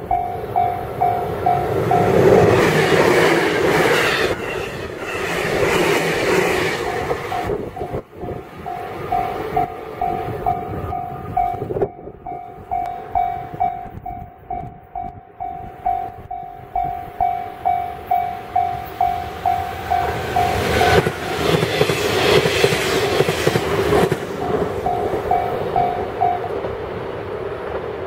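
Japanese railway level-crossing warning bell ringing, an even electronic ding about three times a second that stops near the end. Trains rumble past over it twice, a few seconds in and again about twenty seconds in.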